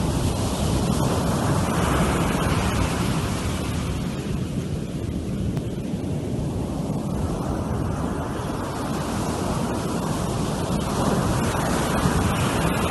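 Ocean surf breaking on a beach: a steady rush of waves that swells a little about two seconds in and again near the end.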